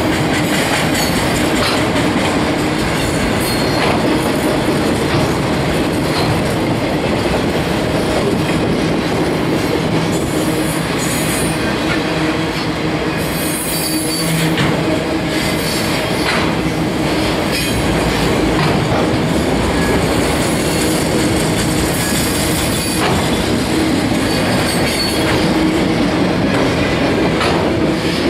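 Freight train of enclosed autorack cars rolling past at close range: a steady rumble of steel wheels on rail, with repeated clicks as wheels cross rail joints and brief high-pitched wheel squeal around the middle.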